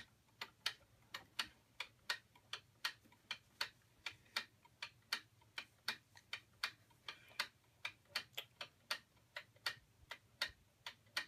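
A see-through toy gear clock with coloured plastic gears and a pendulum ticking: quick, even clicks of its plastic mechanism running after being wound.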